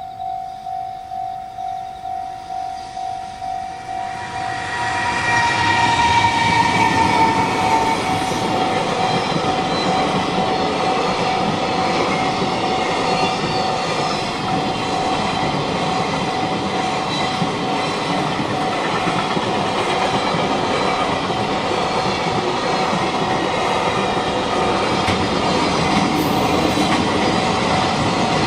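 Japanese level-crossing alarm ringing, a steady ding about one and a half times a second. About four seconds in, a train on the Tokaido Main Line arrives and passes through the crossing, loud and steady for the rest of the time, with a brief horn-like tone as it comes in. The crossing bell keeps sounding under the train.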